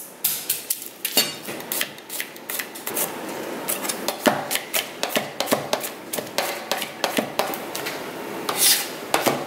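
Chef's knife chopping a garlic clove finely on a plastic cutting board: a quick, uneven run of blade knocks, several a second.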